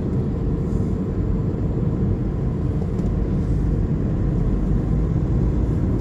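Steady low rumble of a car driving along a highway, engine and tyre noise heard from inside the cabin.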